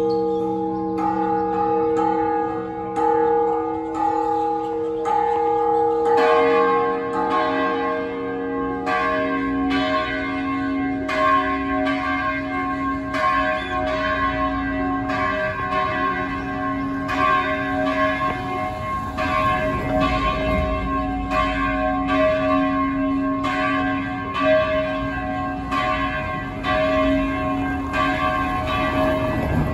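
Cathedral church bells ringing a repique, a festive peal with several bells struck over and over, about one to two strokes a second, each stroke ringing on. About six seconds in, the mix of pitches changes as a lower bell comes in.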